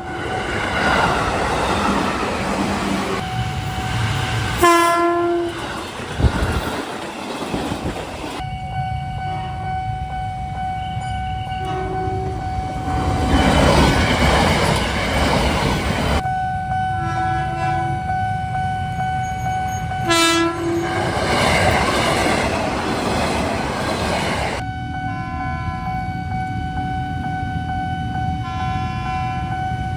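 KRL Commuter Line electric trains passing with a rushing rumble, each sounding a short horn blast, about five seconds in and again about twenty seconds in. A steady level-crossing warning signal sounds throughout.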